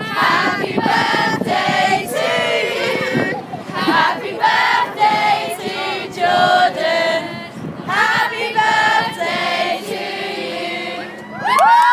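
A group of young people, mostly girls, singing together in unison in held, sung phrases. Just before the end a loud, high, held shout rises in over them.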